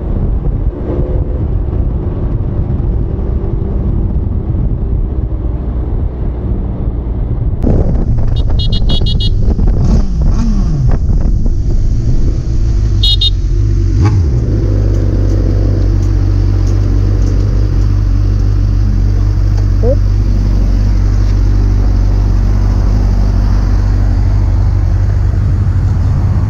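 Sport motorcycle engine running under wind rush, then idling steadily once the bike has stopped. Two short bursts of rapid pulsing electronic chirps come about eight and thirteen seconds in.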